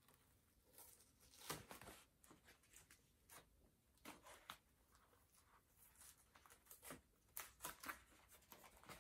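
Faint, intermittent rustling of a thin protective paper sheet being peeled off a monitor screen and handled.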